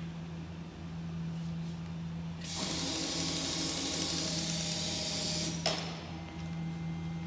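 Industrial sewing machine stitching the side hem of a lined curtain: it runs at speed for about three seconds, starting about two and a half seconds in and stopping abruptly with a click, over a steady low motor hum.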